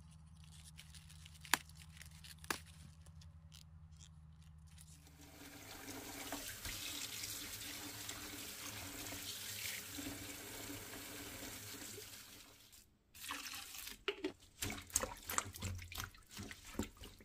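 Two sharp clicks over a low hum, then a kitchen tap running into a basin of cabbage shoots as hands rinse them. Near the end the tap stops and the water splashes and sloshes as hands swish the greens around in the filled basin.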